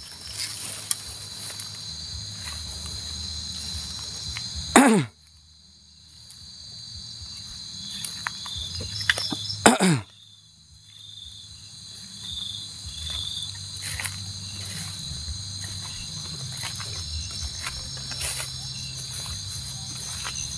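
Night chorus of crickets and other insects trilling steadily, with scattered rustles and clicks in the undergrowth. Two loud, brief sounds sweep steeply down in pitch, about five seconds apart.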